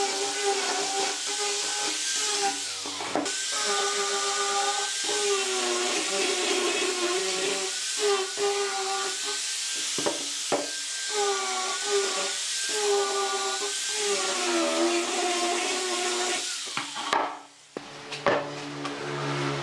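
Electric angle grinder with a sanding disc sanding pine boards: a steady high motor whine over the rasp of the disc on the wood, its pitch sagging briefly several times as the disc is pressed harder into the wood. The grinder stops abruptly near the end.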